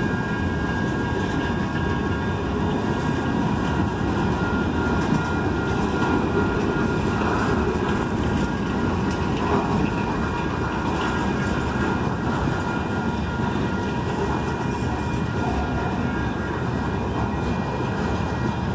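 Freight train cars rolling past, a steady rumble of steel wheels on rail.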